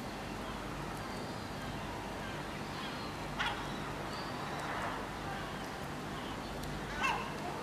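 Steady outdoor town hum, with two short bird calls, one about three and a half seconds in and one near the end.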